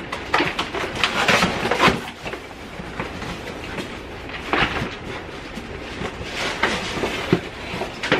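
Rummaging in a cardboard box: the flaps rustling and scraping, with irregular knocks and clatter as binders and folders are shifted and lifted out.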